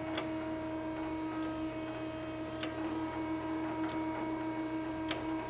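Steady hum of a Bryant Universal internal grinder's hydraulic unit running, with a few faint clicks from the machine a couple of seconds apart.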